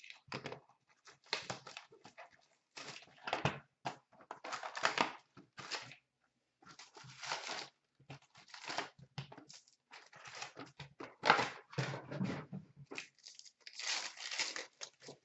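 A sealed trading-card hobby box being opened by hand and its card packs handled and torn open: irregular bursts of cardboard and foil wrapper tearing and crinkling, with short pauses between.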